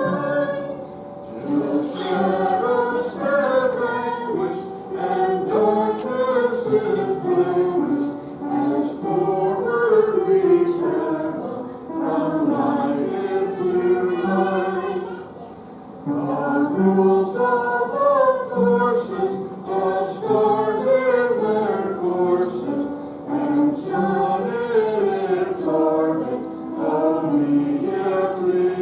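Congregation singing a hymn together, a group of voices carrying the melody line by line, with a brief pause between phrases about halfway through.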